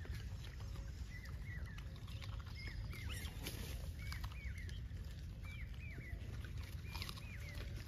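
Small birds chirping: short arching notes, mostly in quick pairs, about once a second, over a steady low rumble and a few faint clicks.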